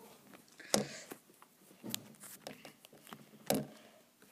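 Hands handling the camera at close range: three soft knocks with faint rustling between, the one near the end the loudest.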